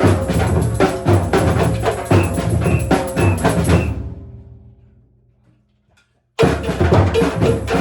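Batucada percussion ensemble playing a driving drum groove that breaks off about four seconds in and rings away to near silence. About two seconds later the whole group strikes in again together, loud, for a short closing phrase that rings out.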